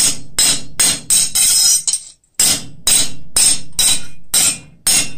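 Hand hammer striking a cold steel cross blank on an anvil, about two to three ringing metallic blows a second with a brief pause about two seconds in. The blank is being straightened so it sits flush.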